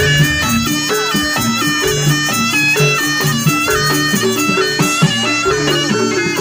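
Live Jaranan ensemble music: a nasal, bagpipe-like reed trumpet (slompret) plays a stepping melody over lower repeated percussion notes.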